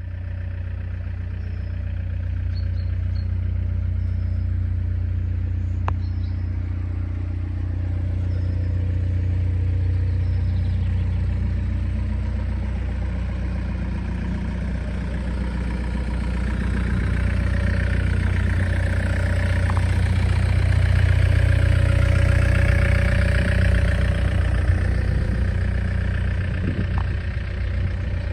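Diesel engine of a Volvo EC55C 5.8-tonne excavator running steadily, growing louder for several seconds past the middle.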